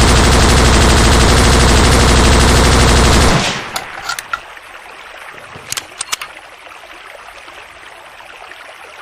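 DP-23 machine gun firing one long burst of rapid automatic fire, ending about three seconds in. A few sharp clicks follow about a second later and again near the middle.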